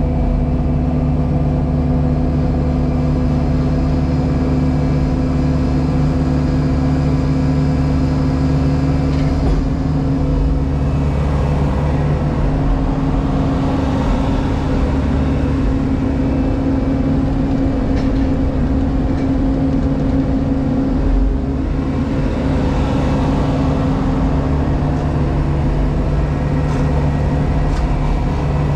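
Diesel engine of a JCB Pothole Pro running steadily, heard from inside the operator's cab. The engine note shifts slightly about a third of the way in and again about two-thirds of the way in.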